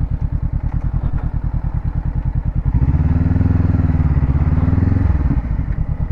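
Honda CBR500R's parallel-twin engine running at low revs with an even pulsing note. About three seconds in it revs up for around two seconds, then eases back off near the end.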